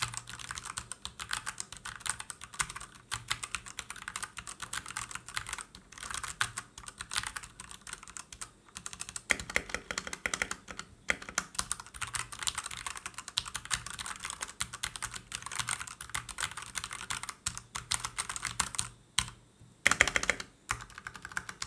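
Fast, continuous typing on a Royal Kludge RK71 mechanical keyboard with linear red switches: a dense run of key clacks, not too loud, with a couple of short pauses and a louder flurry near the end.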